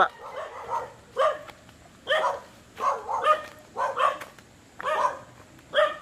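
A dog barking repeatedly, short barks coming roughly once a second.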